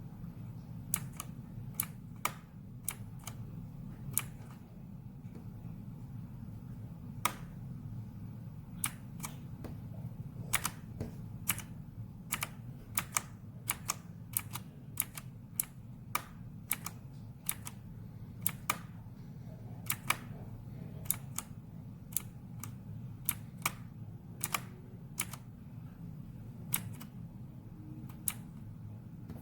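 Keys on a Corsair K70 RGB PRO mechanical keyboard with Cherry MX Red linear switches being pressed one at a time, giving sharp separate clacks at an uneven pace of about one or two a second.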